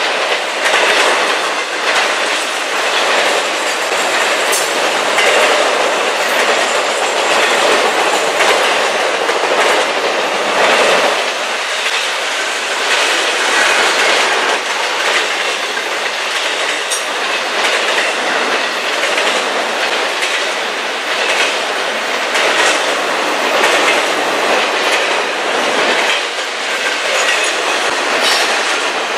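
Double-stack container train's well cars rolling past, a steady loud rush of steel wheels on rail with repeated clicks as the wheels cross rail joints.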